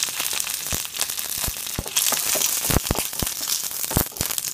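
Dried red chillies, curry leaves, mustard seeds and urad dal frying in hot coconut oil in a pan as they are stirred: a steady sizzling hiss with frequent sharp crackles and pops.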